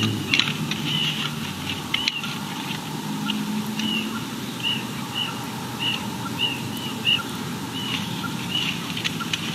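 A small bird chirping: a string of short, high, arched notes, roughly one every half second, with a few sharp clicks near the start and near the end over a steady low hum.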